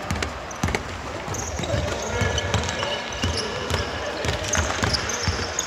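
Basketball bouncing on a hardwood court: repeated dull thuds at an uneven pace.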